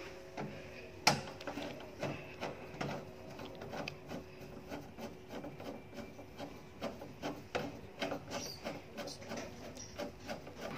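Screwdriver turning a screw into the steel lever-handle plate of an armoured door: a run of quick, irregular scraping clicks as the screw is driven home, with one sharper click about a second in.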